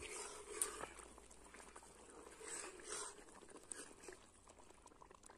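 Faint scraping and light clinks of a metal ladle stirring masala in oil in an aluminium kadhai.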